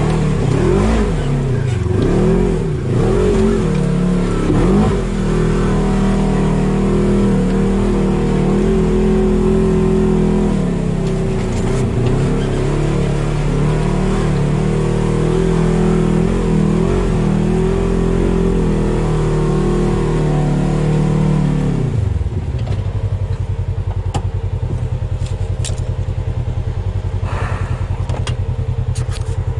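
Polaris RZR side-by-side's twin-cylinder engine, heard from inside the cab, revving up and down as it crawls up a rough, rutted hill. The revs then hold fairly steady before dropping to idle about 22 seconds in, with a few light knocks near the end.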